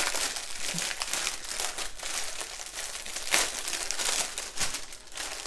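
Small plastic zip-top bags of diamond painting drills crinkling and crackling as they are handled and shuffled through, with one sharper crackle a little past the middle.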